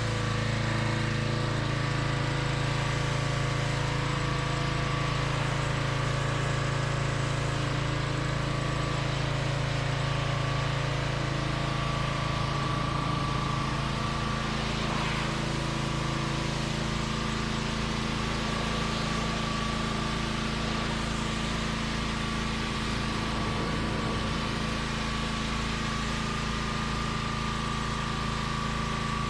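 Small engine of a 2800 psi pressure washer running at a steady speed.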